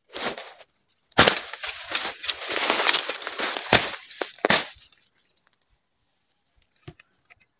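Leafy bamboo and undergrowth rustling and being pushed through, with three sharp snapping cracks, the first about a second in and the last near the middle. It stops sharply after about five seconds.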